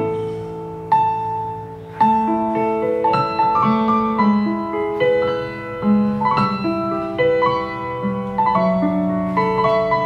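Slow solo piano melody with chords played back through a Sony SRS-XB12 portable Bluetooth speaker set to 80% volume.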